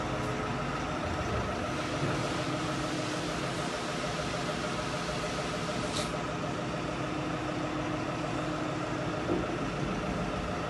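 Machinery running steadily: an even mechanical hum holding a few steady tones, with one sharp click about six seconds in.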